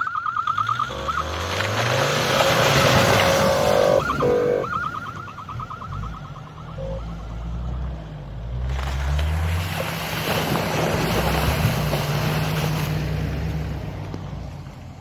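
Off-road 4x4s driving through a shallow snowy creek one after another. Each engine revs up as the vehicle ploughs through the water, with a long rush of splashing: the first, a Land Rover Discovery, about one to four seconds in, and the next about nine to thirteen seconds in. A rapid run of high chirps sounds near the start and again about five seconds in.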